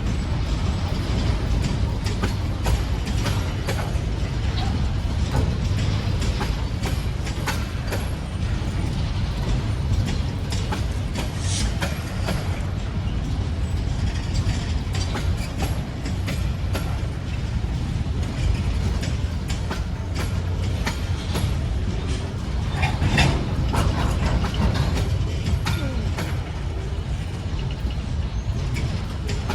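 Freight train rolling by: a steady low rumble with the clickety-clack of wheels over rail joints, and brief wheel squeals about 11 and 23 seconds in.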